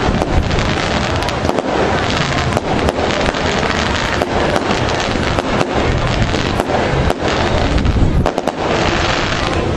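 A dense, continuous crackle of sharp pops and bangs over a low rumble.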